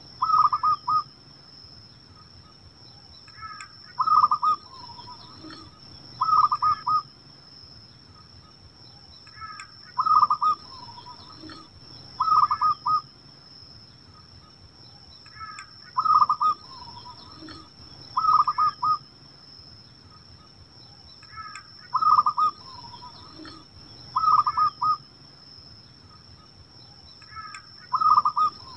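Zebra dove (perkutut) cooing: short phrases of quick stuttering notes that end in a lower drawn-out coo, repeated about every six seconds, each answered about two seconds later by another quick pulsed group. A constant thin high-pitched tone lies underneath.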